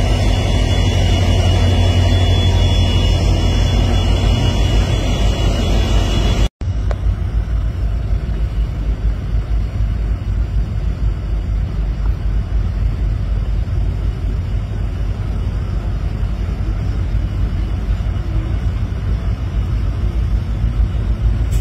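Diesel locomotive engine rumbling steadily as it hauls a train of tank wagons past at close range. After a brief break about six seconds in, a steady, noisier rumble of a train approaching continues.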